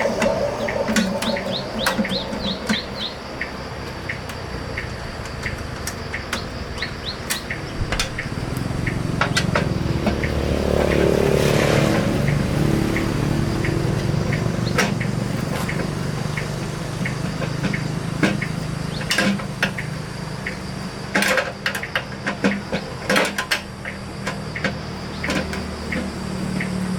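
Sharp metallic clicks and knocks, like hand tools being set down and handled, with birds chirping in the first few seconds. From about eight seconds in a small engine runs in the background, swelling briefly and then holding steady.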